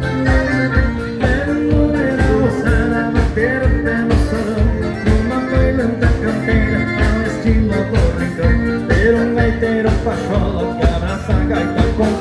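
Live gaúcho dance band playing a vanera with a steady pulsing bass beat and a sustained melody over it.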